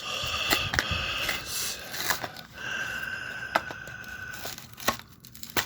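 Toy packaging being handled and opened by hand: scraping and rustling of cardboard and plastic, with several sharp clicks and a brief squeak.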